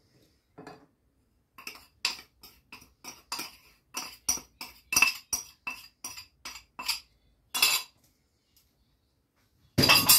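Wire whisk clinking against a glass mixing bowl: a run of quick sharp clinks, about three a second, then a short dense clatter near the end.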